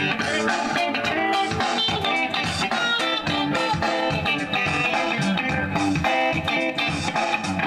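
Electric guitar played solo, a continuous run of plucked single notes and riffs.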